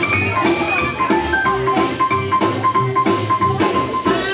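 Music with drums and a steady beat, with sustained melodic notes over it.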